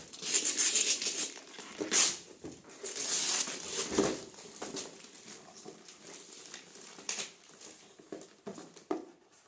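Gift wrapping paper being torn and crinkled off a present in a series of quick rips, busiest in the first four seconds and softer rustling after.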